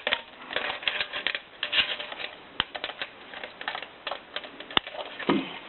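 Irregular clicking and tapping of the metal parts of an AK-47 75-round drum magazine being handled and worked on while its spring is coiled back inside.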